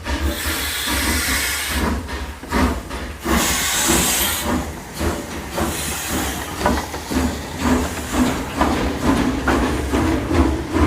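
Steam locomotive working: loud bursts of steam hiss in the first half, and steady exhaust chuffs over a low rumble, the beats coming a few times a second in the second half.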